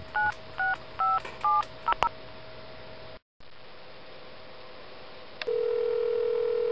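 Touch-tone telephone keypad dialling: five quick two-tone beeps, one per digit, in the first two seconds. About five and a half seconds in, a steady telephone ringback tone starts, the sign that the dialled call is ringing.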